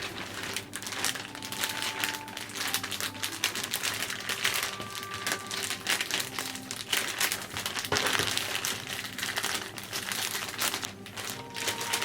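Dense, irregular crinkling and rustling, over soft background music.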